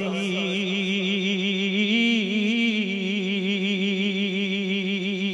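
A man's solo voice holding one long, wavering sung note with vibrato, a drawn-out melisma in a Punjabi devotional kalaam, the pitch lifting a little near the middle.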